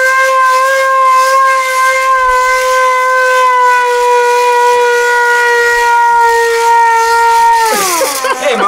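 Hand-cranked WWII Japanese air raid siren wailing loud and steady while it is cranked at speed, its pitch sagging slightly. Near the end the pitch falls steeply as the cranking stops and the rotor winds down.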